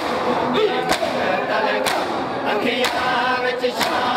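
A crowd of men chanting a Muharram mourning lament together, with sharp, even hand strikes on the chest (matam) about once a second keeping the beat.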